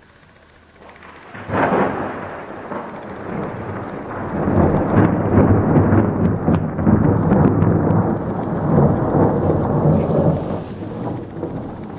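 Thunder: a sudden loud peal about a second and a half in, followed by a long rolling rumble that swells and then dies away near the end.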